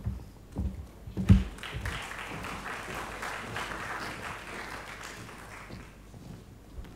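Audience applauding, then dying away, with two dull thumps in the first second and a half.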